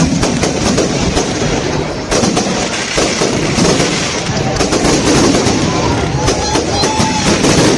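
Fireworks salute going off: a dense run of crackling pops and sharp bangs over the voices of a large crowd.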